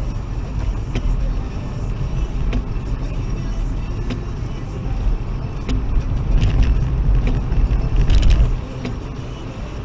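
Cabin noise of a Toyota Aygo driving on a wet road: a low rumble with tyre hiss and scattered light ticks. It swells from about six seconds in and drops off suddenly about eight and a half seconds in.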